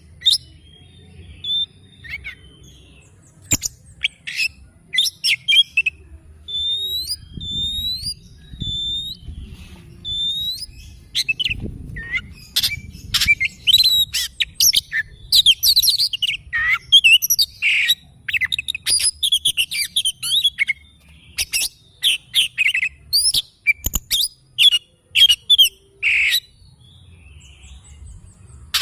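Oriental magpie-robin (kacer) singing a varied song of clear whistles and chattering notes: a few repeated hooked whistles in the first third, then a dense, rapid run of notes through the middle that stops a couple of seconds before the end.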